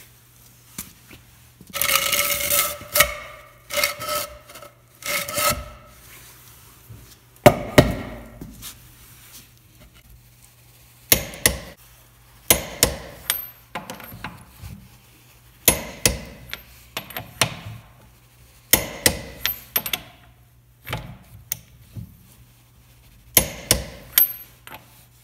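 A few seconds of loud clattering knocks with a metallic ring. Then a click-type torque wrench ratchets on the wheel's lug nuts in several rounds of short, sharp clicks, its click marking each nut reaching the set torque of 100 foot-pounds.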